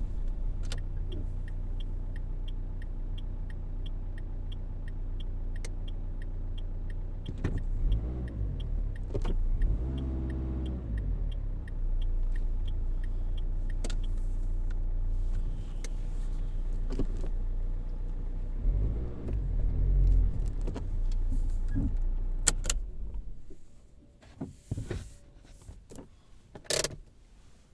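Car engine running while driving, a steady low hum with a regular ticking about twice a second for the first dozen seconds and a brief rise in engine pitch about ten seconds in. Near the end the engine stops, and a few sharp clicks and knocks follow.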